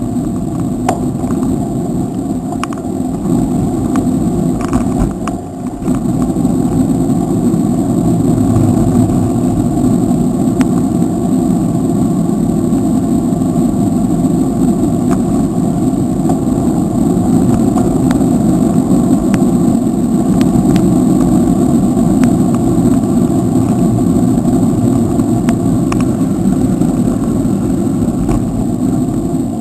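Steady rush of wind and road noise on the microphone of a camera riding on a moving bicycle, with a few faint ticks.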